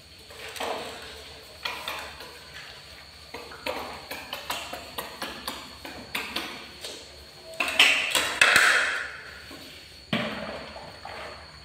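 Irregular light knocks and clinks of a plate on a tiled floor as a monkey and a kitten scuffle over rice on it. About eight seconds in comes a louder, noisier burst.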